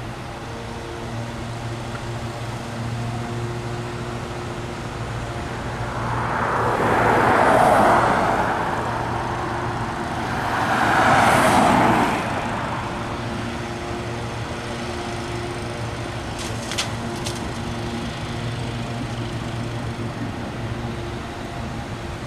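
A steady low engine hum runs throughout, and two road vehicles pass by one after the other, swelling up and fading about seven and eleven seconds in. A few faint light ticks follow.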